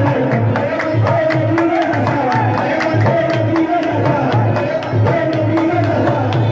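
Qawwali music: harmoniums playing sustained chords with a lead voice singing, driven by a steady hand-drum beat and regular hand claps.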